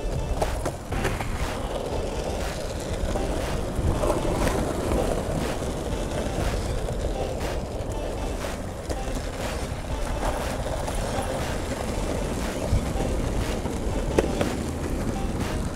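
Longboard wheels rolling steadily over an asphalt path, a continuous rumble with a few sharp clacks as the wheels cross cracks and bumps.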